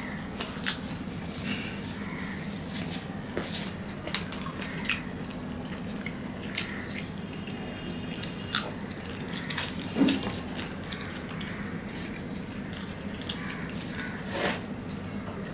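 Close-up eating sounds of fried rice and fried chicken eaten by hand: chewing and biting, with scattered small clicks of fingers and food against plates, the sharpest about ten seconds in. A steady low hum runs underneath.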